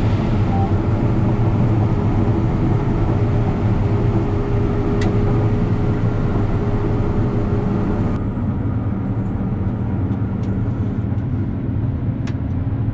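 John Deere S690 combine running steadily while picking corn, a low machine drone with a faint whine that drops out about eight seconds in, and a few light ticks.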